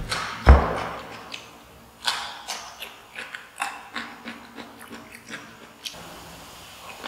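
A person chewing and crunching food close to the microphone, with many short crackly crunches, after a single low thump about half a second in.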